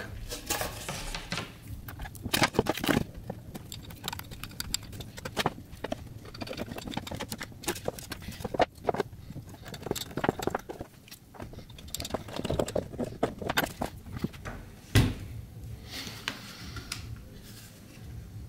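Plywood panels and 3D-printed case parts being handled and fitted together on a workbench: irregular clicks, knocks and scrapes, with one louder knock about fifteen seconds in.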